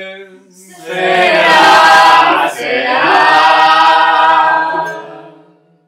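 A small group of men and women singing together in long held notes, two sustained phrases with a short break between them, fading out near the end.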